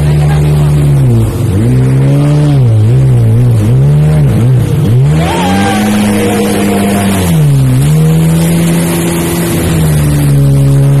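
Jet ski engine running at speed, its pitch dipping and recovering several times as the throttle is eased and opened, then climbing and holding steady. A rush of wind and spray runs underneath.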